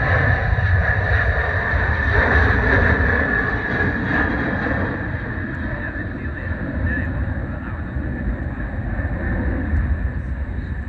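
Airliner's engines running at takeoff power: a steady high whine over a low rumble that slowly fades through the second half.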